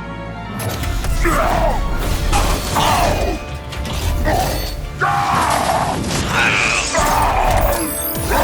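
Action background music with a steady deep bass, overlaid by a run of short fight sound effects about one a second: mechanical whirs and crashing hits.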